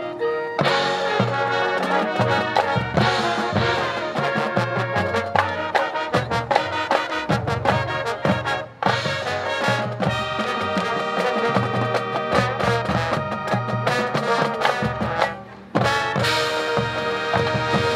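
Marching band playing: brass with percussion, cutting out briefly a little before halfway and again shortly before the end, then coming back in at full strength.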